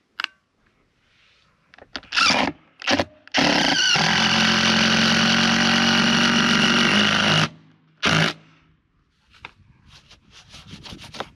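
Electric drill boring a countersink into an existing screw hole: a few short trigger bursts, then one steady run of about four seconds, then another short burst.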